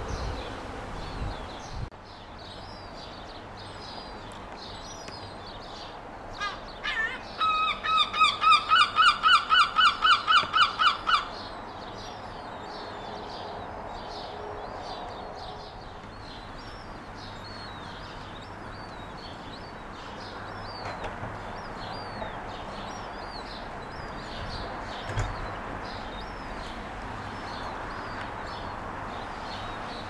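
Herring gull chicks peeping with thin, falling whistles over and over. About six seconds in, a gull gives a loud run of repeated calls, about four a second, lasting some five seconds.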